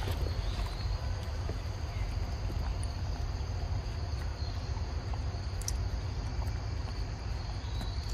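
Steady high-pitched drone of insects in the forest, over a constant low rumble.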